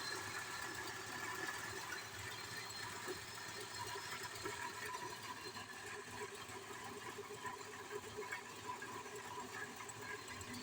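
1999 Toyota Tacoma four-cylinder engine running with a steady, fast mechanical clatter. The engine has a misfire.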